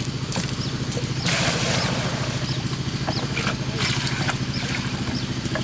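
A small engine running steadily with an even pulsing beat. It is joined by two brief rushes of noise, about a second in and again near four seconds.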